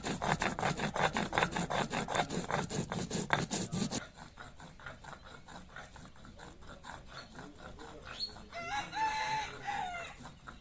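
Cumin seeds being ground on a flat stone slab with a stone muller (shil-nora): quick, even, gritty rubbing strokes, loud for the first four seconds and fainter after that. A rooster crows near the end.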